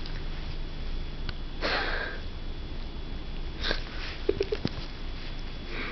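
A Siamese cat licking itself: a breathy, sniff-like rasp about two seconds in, another just before four seconds, then a quick cluster of short clicks.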